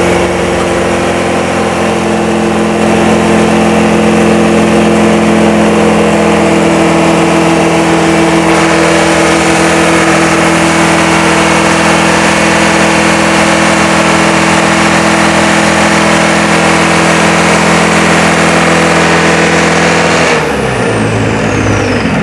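Isuzu 4JB1T four-cylinder turbo diesel driving a hydrant pump, running fast with its throttle set too high, getting louder about three seconds in. About twenty seconds in it is shut off and runs down, a high whine falling away as it stops.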